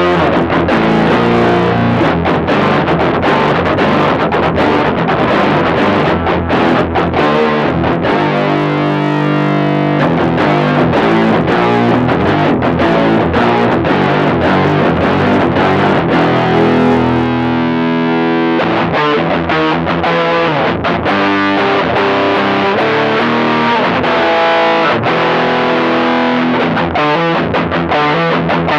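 Distorted electric guitar played through an Electro-Harmonix Micro POG polyphonic octave generator, the pedal adding sub-octave and octave-up voices to the chords and held notes.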